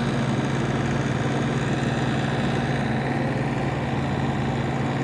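Engine running steadily at a constant speed, with a strong low hum.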